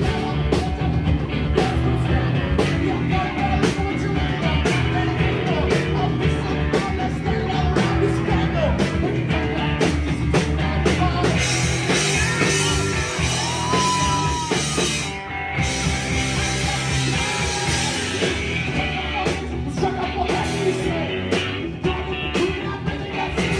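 Live rock band playing: electric guitars and drums with a man singing into a microphone. The sound drops out for a moment about fifteen seconds in, then the band comes back in.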